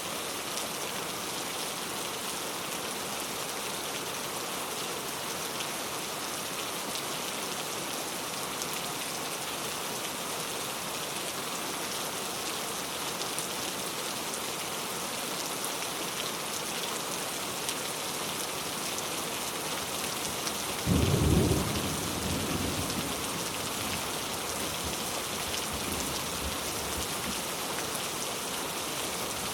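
Heavy rain falling steadily on a leaf-covered road. About two-thirds of the way through a loud clap of thunder breaks over the rain and rumbles away over several seconds.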